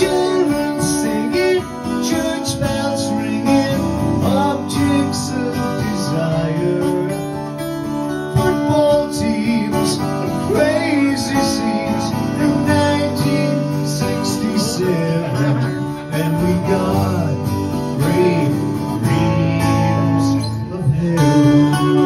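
Guitar strummed steadily through an instrumental break in a live song.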